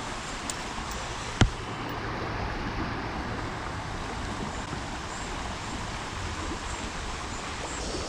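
River current rushing steadily over a shallow, rippling stretch of stream, with one sharp click about a second and a half in.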